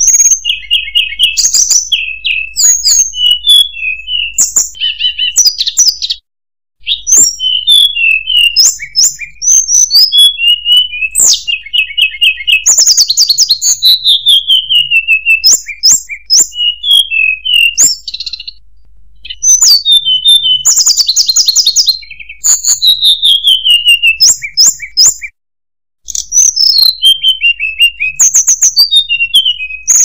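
Hill blue flycatcher (tledekan gunung) singing a rapid, varied run of high chirps, quick trills and downward-sliding whistles. The song breaks off briefly about six seconds in and again about twenty-five seconds in.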